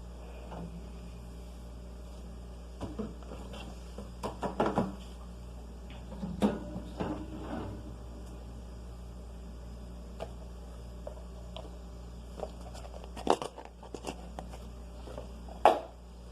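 Plastic food containers and packaging being handled while a refrigerator is cleared out: scattered knocks, clicks and rustling over a steady low hum, with the sharpest knock near the end.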